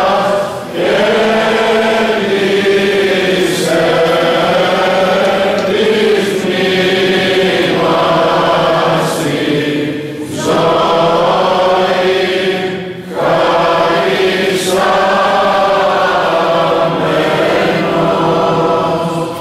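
Greek Orthodox Byzantine chant sung by voices in long, held phrases, with short breaks between phrases about a second in, near the middle and about two-thirds through.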